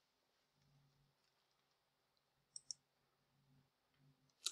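Near silence broken by two faint clicks in quick succession about two and a half seconds in, typical of a computer mouse button, then one sharper short click near the end.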